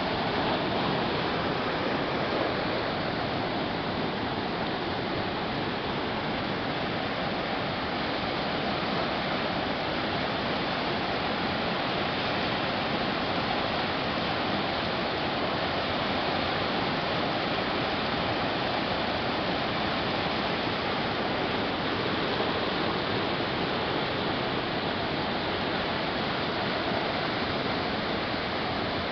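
Rain-swollen creek in flood, muddy water rushing and churning fast down its channel in a steady, loud wash of noise.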